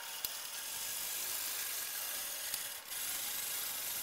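Milling machine table being hand-cranked along its X axis, played back ten times fast: a steady, high rasping rush of handwheel, leadscrew and slide noise. It breaks off briefly just before three seconds in.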